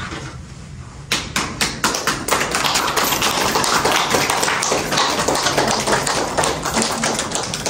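A small group clapping by hand, the claps starting about a second in and continuing in a dense, irregular patter.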